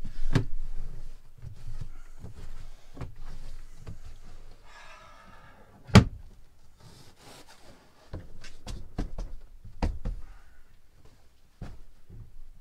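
Knocks, thuds and rustling of someone working around a camper's under-seat water-tank compartment, with one sharp, loud wooden thump about six seconds in as the seat lid is shut, then scattered lighter knocks.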